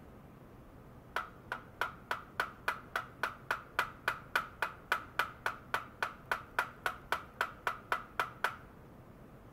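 A steady, evenly spaced run of sharp ticks, about three and a half a second, each with a brief ring; they start about a second in and stop near the end.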